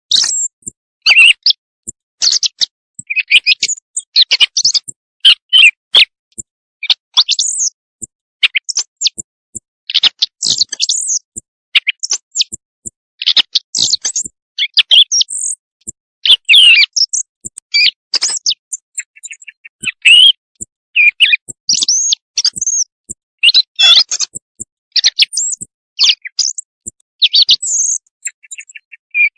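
Quail call recording used as a night-time hunting lure: short, high-pitched chirping calls repeated over and over in quick, uneven clusters.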